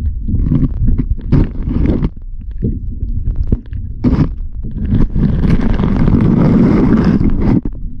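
Wind buffeting the microphone in irregular gusts, a low rumble that swells into a longer, stronger gust from about five to seven and a half seconds in.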